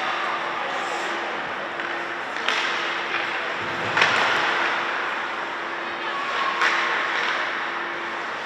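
Ice hockey play in a rink: skates scraping on the ice and sharp knocks of sticks and puck, the loudest about four seconds in, over a steady low hum.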